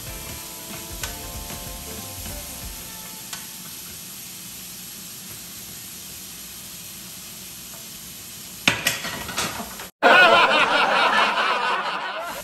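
Sliced smoked meat sizzling as it fries in a nonstick pan, with a spatula clicking and scraping against the pan and a few sharp taps near the end. After a brief dropout to silence comes a louder warbling burst that fades away over about two seconds.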